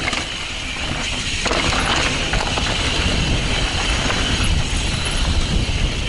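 Mountain bike rear hub ratcheting while coasting down a rough dirt trail, with the rattle of tyres and frame over rocks and bumps.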